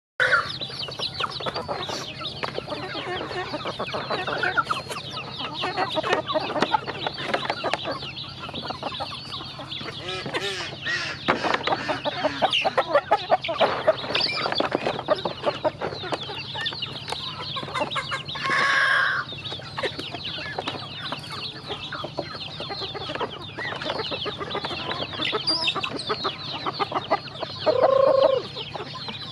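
A flock of chickens and ducklings feeding: dense, rapid pecking clicks on plastic feeders, with clucking throughout. There are two louder, drawn-out calls, one about two-thirds of the way in and one near the end.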